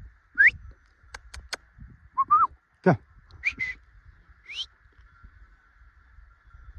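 A bird calling: several short whistled chirps that rise quickly in pitch, with three sharp clicks in quick succession about a second in and one long downward-sweeping call near the middle, over a faint steady high hum.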